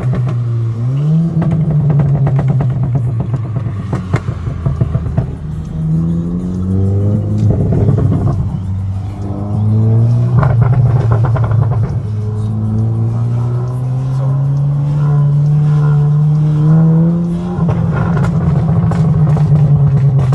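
Volkswagen Golf R's turbocharged 2.0-litre four-cylinder engine accelerating hard. Its pitch climbs slowly and then drops sharply several times as it shifts up, with bursts of exhaust pops and crackles.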